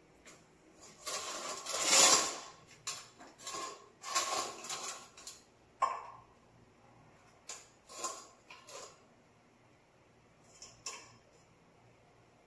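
A stainless steel bowl holding a whole fish scraping and knocking on a tiled floor in a series of short bursts as a cat paws at the fish, the loudest about two seconds in.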